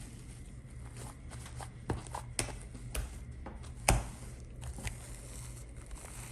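Fluffy slime being squeezed and stretched by hand: scattered small sticky pops and clicks, the sharpest about four seconds in.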